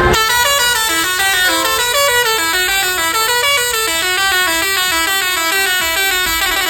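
Basuri telolet horn on a bus playing a fast melody of short stepped notes, several a second, with the notes coming quicker near the end.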